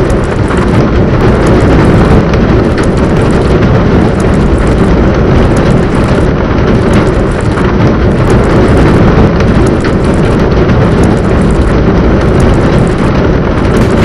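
Loud, steady, dense rumbling noise, heaviest in the low end, with no clear pitch or rhythm.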